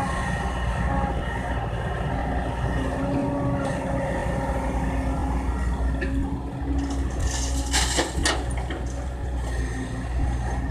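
Kobelco excavator's diesel engine running steadily under load, with a held whine over the low drone. A few sharp clanks or knocks come about seven to eight seconds in.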